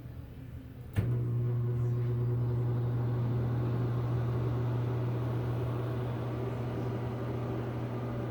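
Greenheck exhaust fan motor: a sharp click about a second in, then the motor's loud, steady hum with a faint rushing of air.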